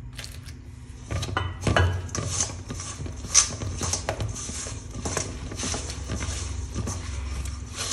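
Hand mixing and kneading flour dough in a stainless steel bowl as water is worked in: irregular scraping and knocking of the fingers against the bowl.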